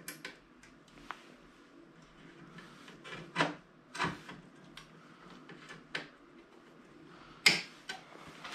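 Scattered short metallic clicks and knocks as a cut aluminium snowmobile tunnel is gripped and worked by hand with a clamp and locking pliers on it, the sharpest knock near the end.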